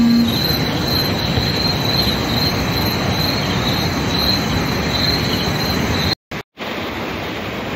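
Night insects chirping in a high, pulsing trill about twice a second over a steady rushing noise. The sound cuts out twice, briefly, about six seconds in.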